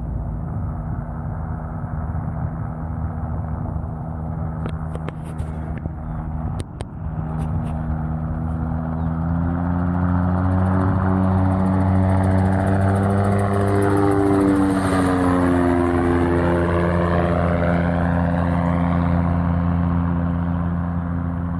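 Light propeller airplane's piston engine making a low fly-by pass. The engine drone grows louder as the plane approaches, and its pitch drops as it passes overhead about two thirds of the way through, then the sound eases off.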